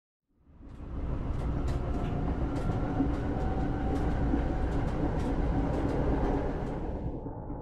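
Subway train running past: a steady rumble with irregular rail clicks and a faint metallic whine. It fades in about half a second in and turns muffled near the end.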